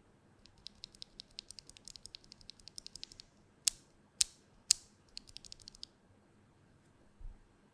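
Typing on a mechanical keyboard: a plateless Tofu60 Redux in a foam-filled case, with lubed Vintage Black linear switches and GMK keycaps. A quick run of keystrokes, then three much louder single strikes about half a second apart, another short run, and a low thud near the end.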